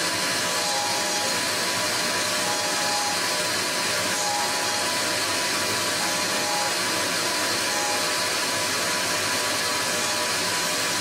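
Tormach 15L Slant Pro CNC lathe running with a steady whirring hiss as its spindle turns a small titanium spacer and the turning tool feeds in to cut the outside diameter, dry with no coolant. Short, slightly higher whines come and go every second or two.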